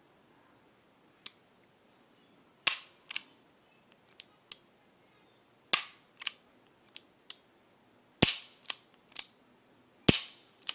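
New England Firearms R92 .22 LR revolver dry-fired double action on spent casings: a series of sharp metallic clicks and snaps as the trigger is pulled and the hammer falls. The loudest snaps come about every two and a half seconds, with lighter clicks of the action between.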